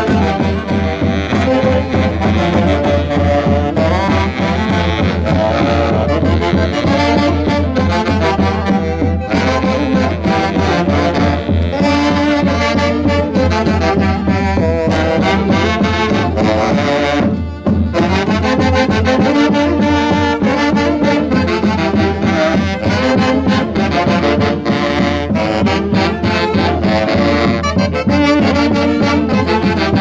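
Loud Andean Santiago festival dance music from a band led by saxophones and brass over a steady beat, with a short break a little past halfway.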